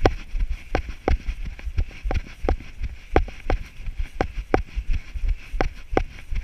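A runner's footfalls on grass, an even run of thumps about three a second, jolting the body-worn camera. Low wind rumble on the microphone underneath.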